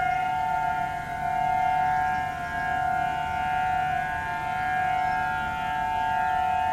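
Several outdoor tornado warning sirens sounding a steady alert tone together: a reverse-wired Federal Signal Thunderbolt 1003 and Federal Signal 2001-SRN sirens. Two main steady pitches blend, and the sound swells and fades in loudness every second or two.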